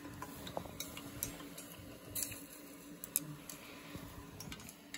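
Scattered light clicks and taps, about a dozen, over a faint steady hum, like tableware being touched on a laid dinner table.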